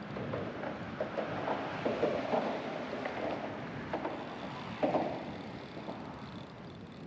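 Wind on the microphone and lapping water, with irregular short knocks and rattles, the sharpest one about five seconds in.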